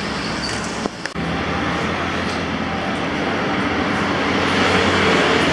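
Steady city street traffic noise with a low engine hum, getting a little louder near the end.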